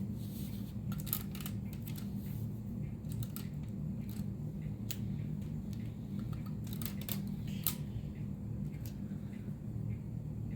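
Scattered light clicks and short rustles of a new graphics card and its packaging being handled, over a steady low hum.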